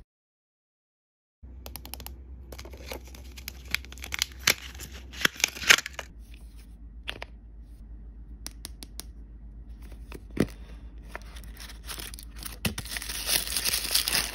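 Plastic and paper wrapping of an L.O.L. Surprise blind ball being torn open and crinkled by hand, with sharp crackles and clicks. It starts after a brief silence and gets louder near the end as crumpled wrapping is peeled off a small toy.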